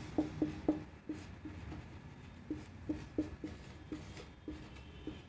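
Marker pen writing on a whiteboard: a string of short, irregular squeaks and taps as the strokes are drawn.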